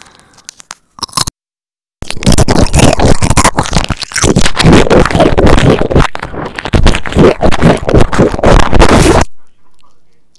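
Very loud, dense crunching and scraping of a spicy Doritos chip right on an earbud microphone. It sets in about two seconds in, after a few faint clicks and a short dropout, and cuts off suddenly near the end.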